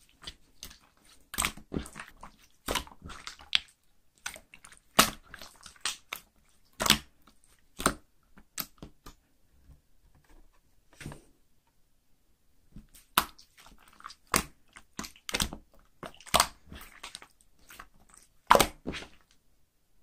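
Clear slime being stretched and squeezed by hand, giving irregular sticky pops and crackles. There is a pause of about three seconds in the middle.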